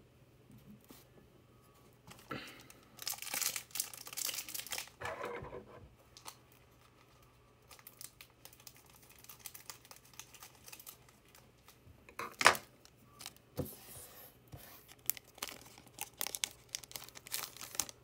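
A trading card pack's foil wrapper being torn open and crinkled in several rustling bursts, with one sharp click about two-thirds of the way through.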